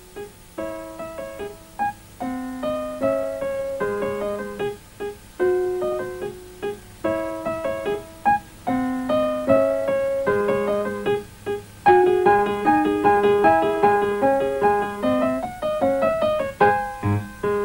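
Solo piano playing a gentle, flowing melody, one note after another over a lower accompaniment; the playing grows fuller and louder about twelve seconds in.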